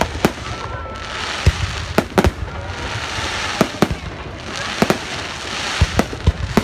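New Year's Eve fireworks going off: a string of sharp bangs at irregular intervals, several in some seconds, over stretches of crackling, with a faint thin whistle about half a second in.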